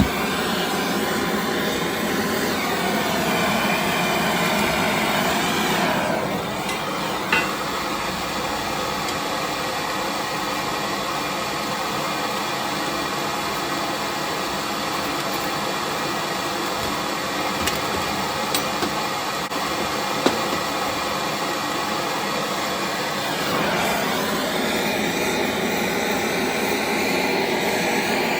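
Steady rushing roar of a heating tool played on the cast-iron vaporiser, warming it to loosen a seized brass insert. The roar shifts briefly about six seconds in and again near the end, with a couple of faint sharp clicks.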